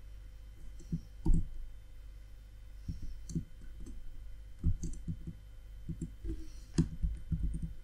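Computer keyboard keys clicking as code is typed: scattered single keystrokes, then quick irregular runs of several keys, over a faint low hum.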